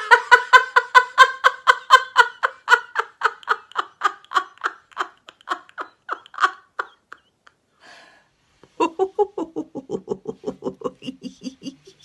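A woman laughing hard in rapid, even ha-ha pulses, high-pitched and loud at first, then tapering off over about seven seconds. After a breath, a second run of rapid, lower-pitched laughter follows.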